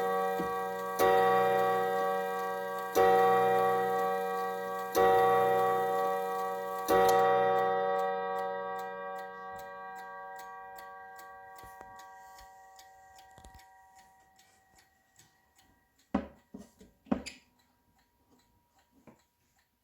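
Howard Miller three-chime clock striking: four identical ringing strokes about two seconds apart, the last fading over several seconds. Faint ticking of the movement follows, then two short knocks near the end.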